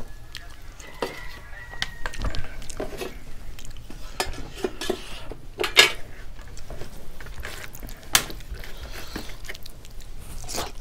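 Fingers scraping and knocking on a stainless-steel plate while mixing food by hand, with sharp clinks and a brief ring from the plate about a second in. A crisp papad is pressed and cracked on the plate, the loudest crack about six seconds in and another just after eight.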